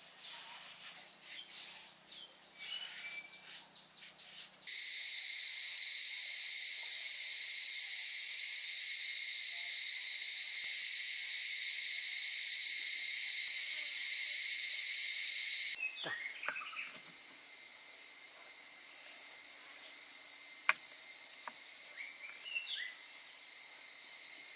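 Forest insects buzzing steadily at a high pitch, with a much louder insect drone joining about five seconds in and cutting off abruptly near sixteen seconds. A few light taps and knocks from hand work follow, the sharpest about twenty seconds in.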